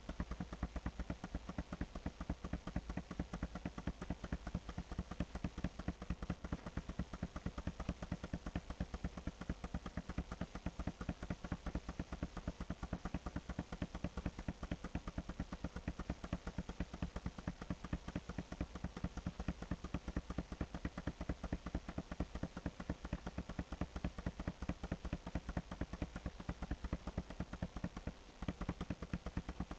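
Rapid, even clicking, many clicks a second, with a brief break near the end.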